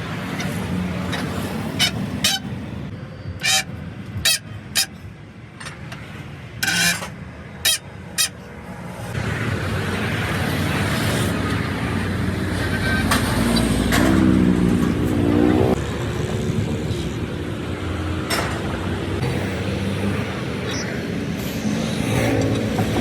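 A series of sharp knocks, about eight over the first eight seconds, then a motor vehicle's engine running louder, its pitch rising and falling about midway.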